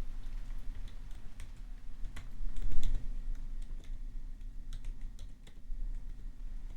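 Computer keyboard typing: irregular keystrokes clicking, with a louder cluster about three seconds in, over a steady background of rain.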